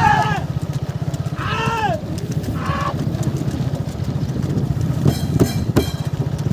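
Men yelling and calling to drive on racing bulls pulling a wooden cart, with a steady, rapid low engine running underneath. There are a few sharp knocks about five seconds in.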